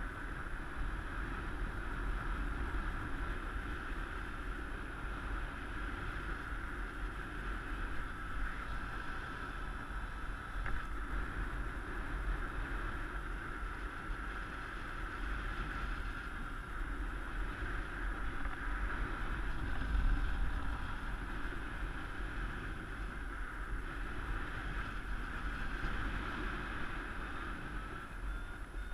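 Airflow rushing over the camera microphone during a paraglider flight, a steady rumbling wind noise with small gusts.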